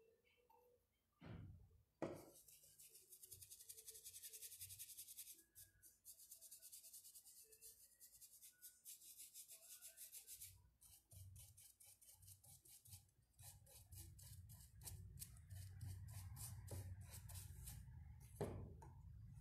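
Paintbrush scrubbing paint onto a rough, cracked wooden board in long runs of quick, scratchy strokes, faint. There are a couple of knocks near the start and another near the end.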